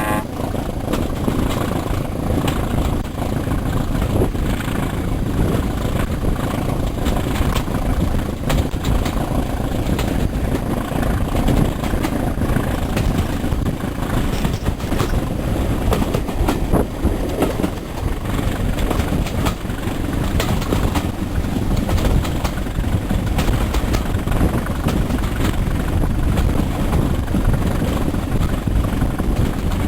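An engine running steadily with a low rumble, with scattered light clicks and knocks over it.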